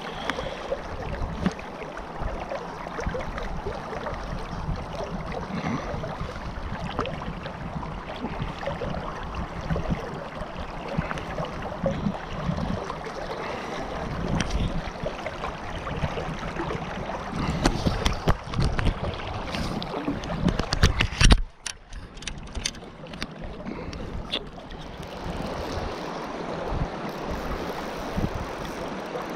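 Wind buffeting the camera microphone over the rush of river water flowing past. About eighteen to twenty-one seconds in there is a run of knocks and rustles, cut off by a sudden brief lull.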